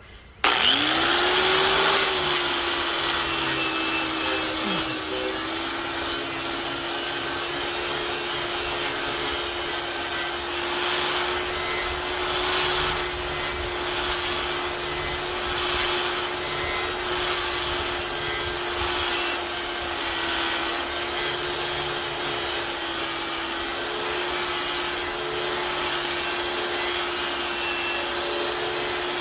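Angle grinder with a 120-grit flap disc switched on, spinning up about half a second in, then grinding steadily along a steel lawn mower blade to sharpen its cutting edge.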